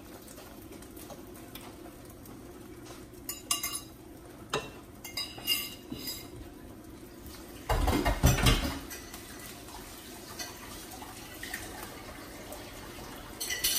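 Dishes, pots and cutlery clinking in a series of short ringing knocks, with one louder clatter about eight seconds in. A faint steady hum runs underneath.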